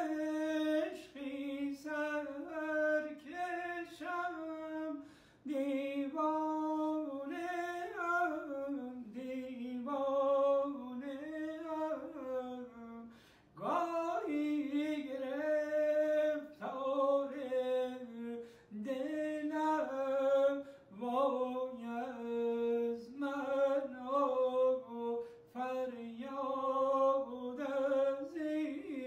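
A man singing unaccompanied in traditional Persian style, long drawn-out phrases whose pitch wavers and steps in ornaments, with short breaks for breath about five seconds in and again near the middle.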